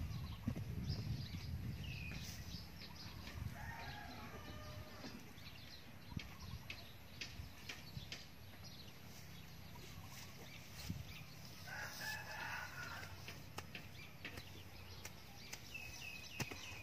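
Wooden digging sticks knocking and scraping in hard soil, irregular sharp knocks. A rooster crows twice in the background, about four seconds in and again near twelve seconds.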